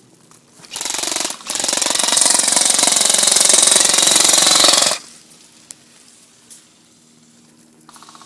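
Airsoft rifle firing on full auto: a short burst about a second in, then a long continuous rattling burst of about three and a half seconds that cuts off suddenly.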